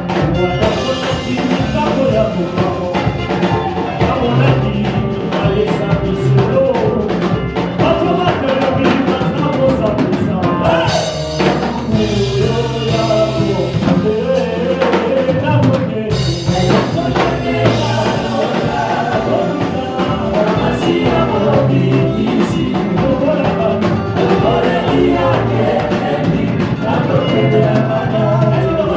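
Gospel worship music with singing over a drum kit, playing without a break.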